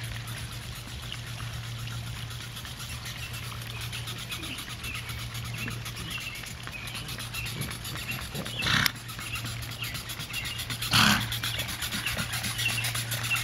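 Miniature horse trotting on asphalt while pulling a light two-wheeled cart, with two short, loud snorts about nine and eleven seconds in.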